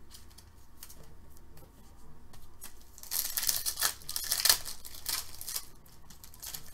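Foil Upper Deck Synergy hockey card pack torn open by hand: light rustling of the wrapper, then a crinkling rip about three seconds in that lasts a couple of seconds.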